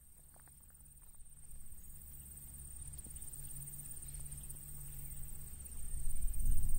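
Open-field pasture ambience recorded on a sensitive stereo microphone pair. A steady high-pitched insect drone from cicadas runs over a low hum, with a few faint clicks. A low rumble swells about six seconds in.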